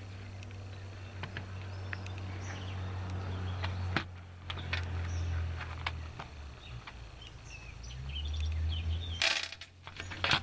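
Single shot from a Kimber 82G .22 rimfire target rifle near the end, over a steady low hum, with birds chirping and a sharp click about four seconds in.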